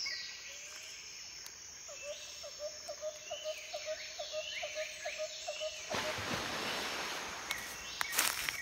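Woodland ambience of birds calling: scattered high chirps, and one bird repeating a short note about four times a second for several seconds. A rustling hiss comes in about six seconds in, with a few sharp clicks near the end.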